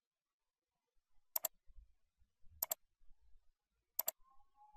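Computer mouse button clicked three times, about a second and a half apart, each click a quick press-and-release pair, as the Next button is clicked through a software installer's pages.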